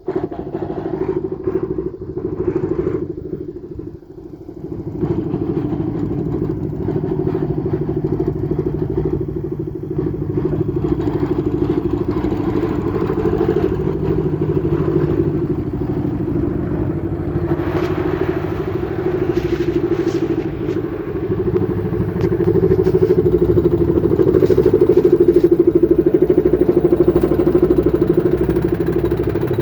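An engine running steadily with a constant hum, dipping briefly about four seconds in and growing louder toward the end, with some clatter over it.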